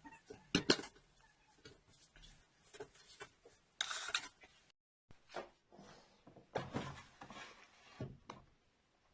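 Plastic knocks and clatter of a washing machine's detergent drawer being handled, a few separate bumps with a short scraping rush near the middle.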